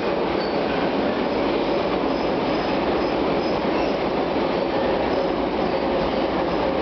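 Metro train running steadily along the track: a continuous rumble of wheels on rail, with faint high wheel squeals coming and going.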